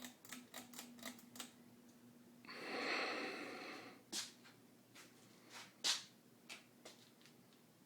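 Hunter Coastal Breeze ceiling fan running on medium with a faint steady hum, over which come irregular sharp clicks and, about two and a half seconds in, a rushing noise lasting about a second and a half.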